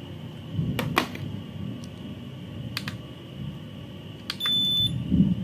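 Digital kitchen scale giving one short high beep as its button is pressed to switch it on, about four and a half seconds in. Around it, sharp clicks and knocks of the fishing rod and scale being handled, and a dull thump near the end.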